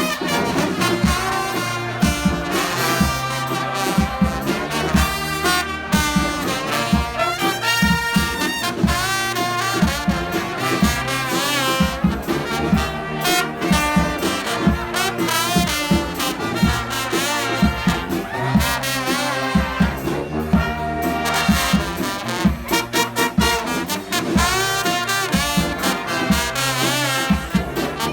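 Street brass band playing, with trumpets and trombones over a steady beat.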